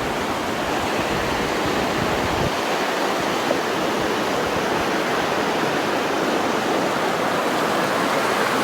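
Steady rushing water of Diamond Creek, the even roar of a waterfall or fast creek.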